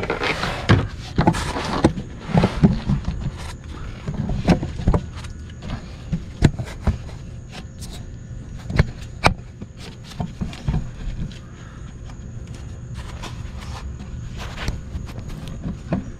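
Scattered knocks and clicks with rustling, busiest in the first few seconds: someone moving about and handling tools and gear at the start of an engine oil change.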